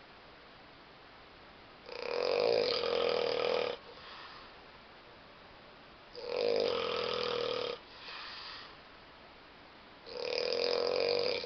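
A person snoring: three loud snores about four seconds apart, each lasting a bit under two seconds, the first two followed by a softer, shorter breath out.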